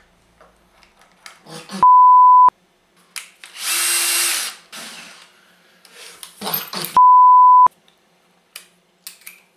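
A cordless drill/driver spins up for about a second with no load, with a shorter burst just after. Before and after it come two loud steady 1 kHz censor bleeps, each under a second, covering swear words. These bleeps are the loudest sounds.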